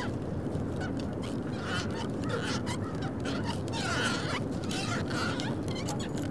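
Short, scattered bird calls, typical of waterfowl, over a steady background of wind and water noise.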